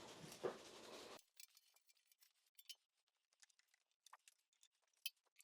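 Near silence, with a few faint, scattered small clicks and ticks.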